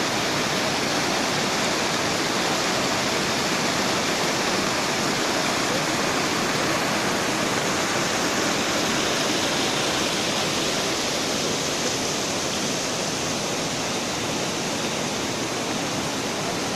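Steady rush of flowing water, running down a wooden channel and splashing among rocks.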